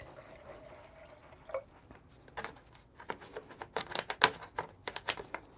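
Water poured from a plastic jug into an empty stainless steel gooseneck kettle, a faint steady trickle that stops about a second and a half in. Then a quick run of sharp clicks and knocks from objects being handled, loudest about four seconds in.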